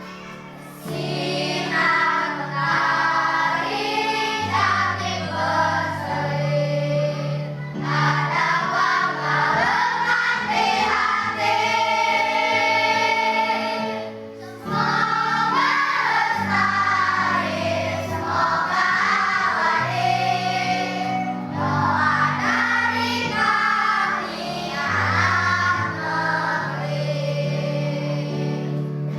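A group of children singing together as a choir over sustained instrumental accompaniment, with a short break between phrases about two-thirds of the way through.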